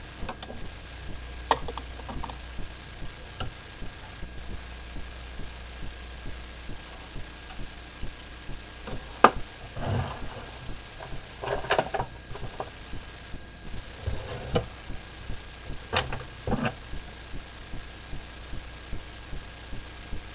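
Scattered light clicks and knocks, a few close together in the middle, over a faint steady electrical hum.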